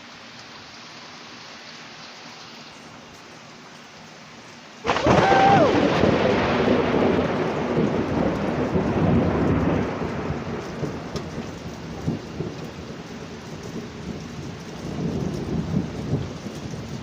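Steady rain, then about five seconds in a sudden, loud clap of thunder that rumbles on and slowly fades, with a second swell of rumbling near the end.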